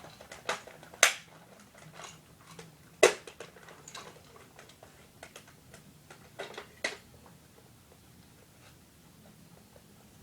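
Parts of a toy robot being handled and fitted back together during reassembly: scattered sharp clicks and knocks, the loudest about a second and three seconds in, with a pair near seven seconds and quiet handling between.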